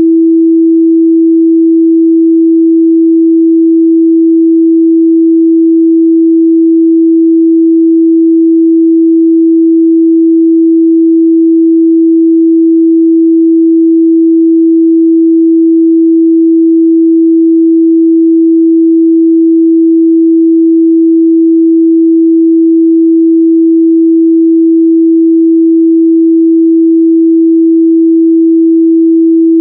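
Steady 328 Hz sine test tone: a single pure mid-range tone held constant at a loud level, with no change in pitch or volume.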